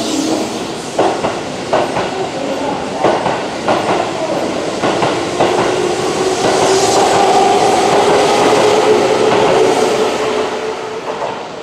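Keihan electric commuter train moving out along the platform: its wheels clack rhythmically over the rail joints, then a steady motor whine carries on as it pulls away, fading near the end.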